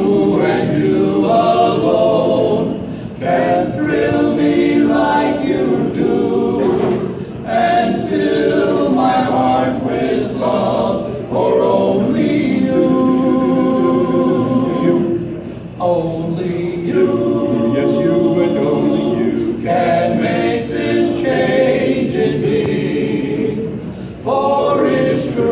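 Male a cappella quartet singing in close four-part harmony, with long held chords and short breaks between phrases.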